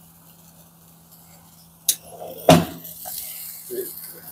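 Handheld sparklers fizzing with a faint high hiss. A sharp click comes a little under two seconds in, followed half a second later by a loud knock or bump.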